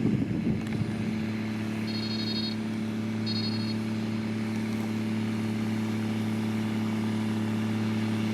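Heavy construction machine's diesel engine running at a steady pitch, with a backup alarm giving two short high beeps a little over a second apart. A brief rougher rumble fades in the first half second.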